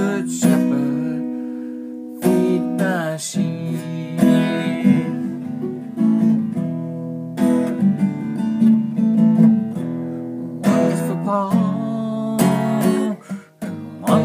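Acoustic guitar playing an instrumental break between sung lines: strummed chords, each struck sharply and left to ring, with picked notes between them.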